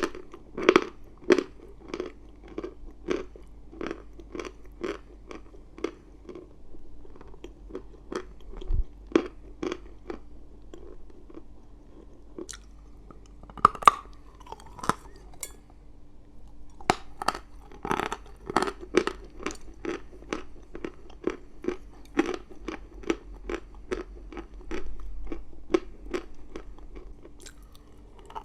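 Close-up crunching and chewing of chalk: a steady run of sharp, dry crunches about two a second, with a few louder bites about halfway through.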